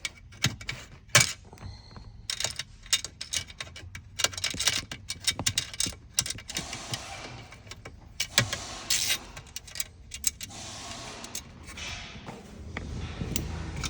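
Ratchet and socket working a seat-mounting bolt loose: a run of irregular metallic clicks and clinks, with a few stretches of scraping.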